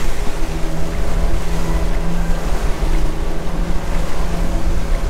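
Motorboat under way, its engine running with a steady low hum over the rush of the wake water and wind on the microphone.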